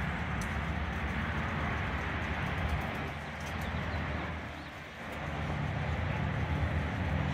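Motorcycle engine running with a steady low rumble under a broad hiss. It eases off briefly about five seconds in, then picks back up.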